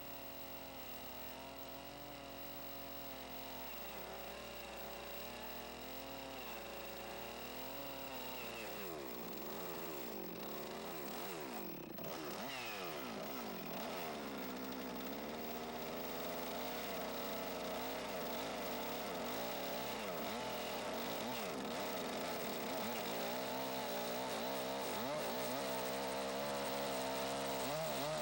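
Chainsaw running and cutting into a log, cutting the flat sides of the tenon on a king post. Its engine pitch wavers up and down with the load, and it grows gradually louder.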